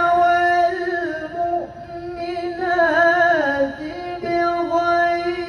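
Melodic Quran recitation (tilawah): a single voice holding long drawn-out notes with wavering ornaments, singing the words "al-mu'minin" and then "wal-mu'minat" near the end.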